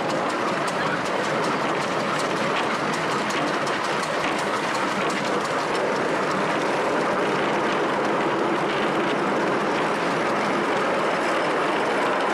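Ride-on miniature steam railway train running steadily along the track, heard from aboard the passenger car, its wheels clicking over the rail joints.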